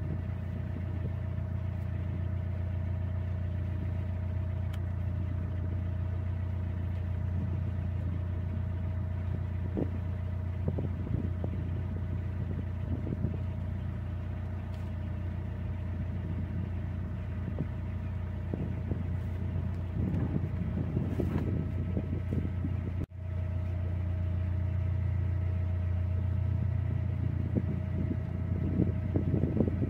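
A narrowboat's engine running steadily at low cruising speed, a constant low hum with a steady whine above it. It drops out for an instant about three-quarters of the way through, then carries on as before.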